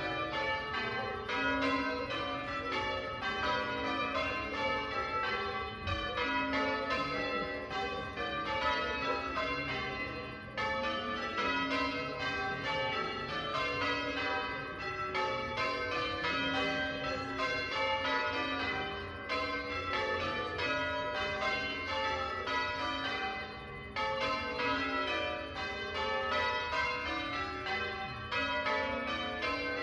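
Church tower bells being change-rung by a band of ringers: a continuous run of strikes at different pitches, each bell's ringing overlapping the next. Brief lulls come about ten seconds in and again about two-thirds of the way through.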